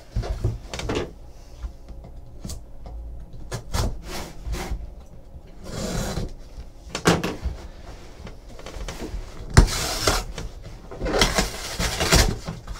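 A sealed cardboard trading-card box being handled and opened: scraping and rubbing of cardboard and plastic wrap, a box cutter slitting the seal, and tissue paper rustling as the lid comes open near the end.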